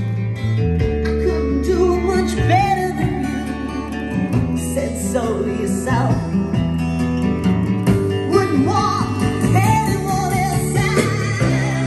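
A song with singing and guitar playing through vintage JBL L96 three-way loudspeakers driven by a Luxman L450 amplifier, heard in the room.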